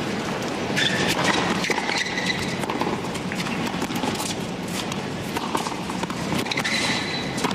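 Tennis racquets striking the ball during a serve and rally: a string of sharp pops spaced irregularly over several seconds, over the steady hum of a stadium crowd.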